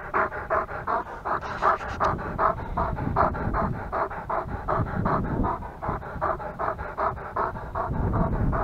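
A dog panting quickly and evenly close to the microphone, about four to five breaths a second.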